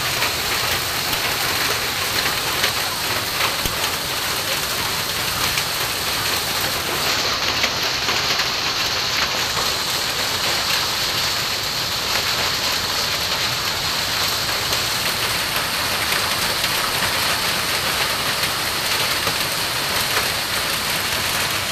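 Heavy rain and hail falling: a steady hiss of rain with many scattered sharp ticks of hailstones striking.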